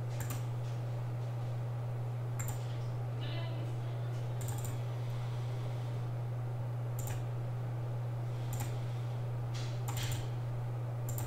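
A few scattered clicks of a computer mouse, some in quick pairs, over a steady low electrical hum.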